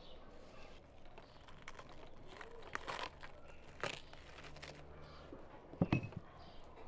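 Clear plastic film crinkling and rustling as it is peeled off a wooden frame of capped honeycomb, with a sharp knock near the end.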